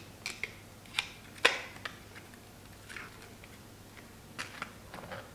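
Scattered light clicks and taps from a laptop and its tools being handled after a RAM upgrade, with one sharper knock about one and a half seconds in.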